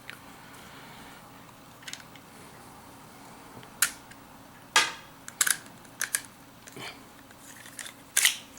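Beretta Nano pistol being taken apart by hand: a string of irregular sharp clicks and clacks from its slide and parts. The loudest come about four and five seconds in and again near the end.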